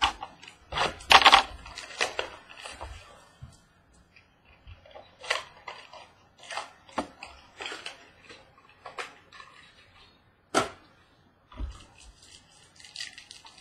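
Hands handling trading cards and rigid plastic card holders on a tabletop: scattered clicks, taps and rustles, loudest about a second in.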